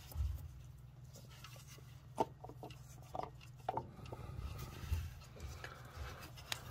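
A few light knocks and clicks of parts being handled, over a low steady hum.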